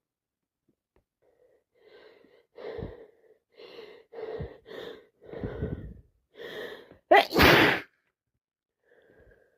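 A person with a common cold sneezing: a run of short, halting 'ah' in-breaths building up over about five seconds, then one loud, explosive sneeze near the end.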